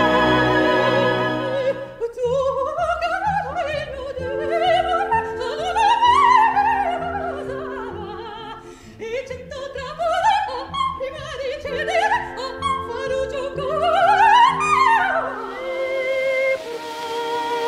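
Opera recording: a soprano holds a note, then sings fast rising and falling coloratura runs over orchestral accompaniment, settling onto held notes near the end.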